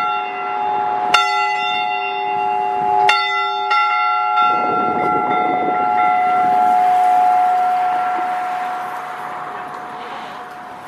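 A church bell struck twice, about two seconds apart, each stroke ringing on; after the second it hums and dies away slowly with no further stroke. It is one stroke in a series of 100 commemorative tolls.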